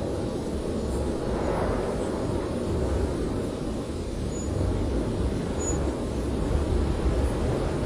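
Blizzard wind, a steady low rush with a brief gust swelling about a second and a half in.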